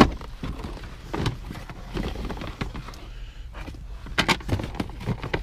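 Scrap metal and wire being handled in a box: scattered knocks and clanks, with a sharp knock at the very start and a quick cluster of clinks about four seconds in.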